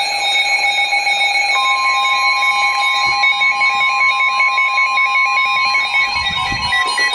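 Emergency Alert System attention tone: a loud, steady, unbroken electronic alarm tone announcing a special marine warning, with a second, higher tone joining about a second and a half in.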